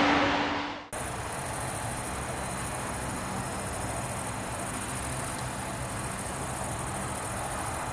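Aircraft noise fading out in the first second, then a steady high-pitched trill of insects in the grass, finely pulsing, over a faint low airport rumble.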